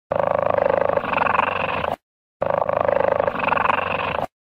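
Cheetah call, a rapidly pulsing sound. The same call of about two seconds is heard twice, with a brief break between.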